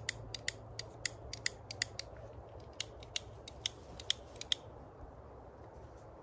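A tobacco pipe being relit and puffed: a run of sharp, irregular clicks and pops, about three a second, stopping about four and a half seconds in.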